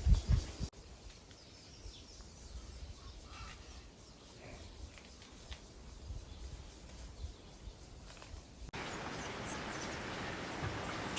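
Outdoor natural ambience: a quiet, even hiss with faint, scattered bird chirps and insect sound. There are abrupt cuts between clips about a second in and near the end, and a few low thumps at the very start.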